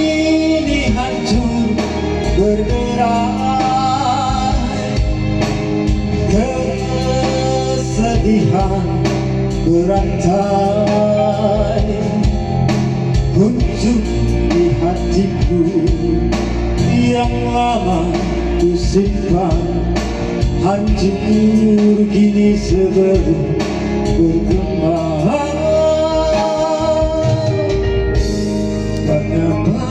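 A song with a man singing over instrumental backing.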